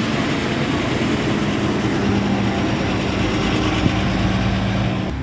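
Heavy truck engine running steadily close by: a continuous drone under a broad rushing noise, its hum dropping slightly in pitch about two seconds in.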